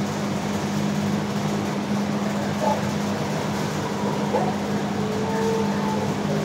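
Steady low mechanical hum in a kennel room, with a faint drawn-out dog howl about five seconds in.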